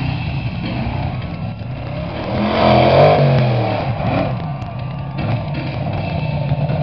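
Mega truck's engine revving as the truck drives, its pitch rising and falling and loudest about three seconds in.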